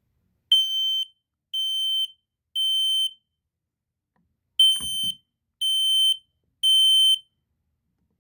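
Kidde P9050 smoke alarm sounding its high-pitched temporal-three alarm: two rounds of three steady beeps, each about half a second long, with a pause between rounds. This is the standard smoke/fire evacuation signal, sounded here on test.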